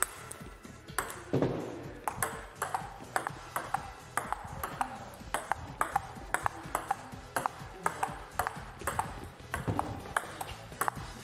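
Table tennis rally: the celluloid ball clicking off paddles and the tabletop in a quick, steady run of sharp hits, about three a second.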